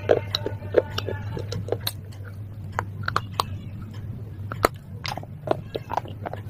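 Close-up biting and crunching of brittle baked clay pot and slate pencil pieces: irregular sharp cracks and crumbles, several a second at times, over a steady low hum.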